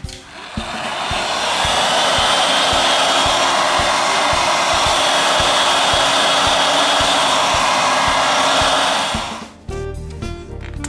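Handheld heat gun blowing a steady rush of hot air with a faint high whine. It starts about half a second in and cuts off shortly before the end. Background music plays underneath.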